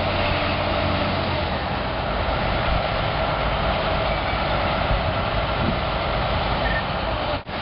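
Pile-driving rig's heavy diesel machinery running steadily, with a brief dropout in the sound near the end.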